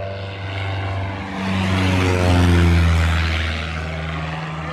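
Small propeller airplane making a low pass overhead. Its engine and propeller drone swells to loudest about two and a half seconds in, and its pitch drops as it goes by.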